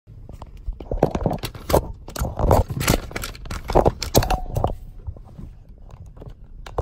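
Irregular clicks, knocks and scrapes of a phone being handled inside a car, densest from about a second in until nearly five seconds, with one more sharp click near the end.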